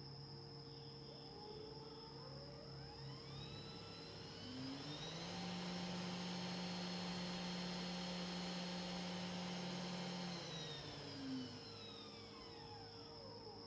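500-watt CNC spindle motor whining up in pitch as its speed knob is turned up, running steady at top speed for about five seconds, then winding back down as the knob is turned down, and starting to rise again right at the end.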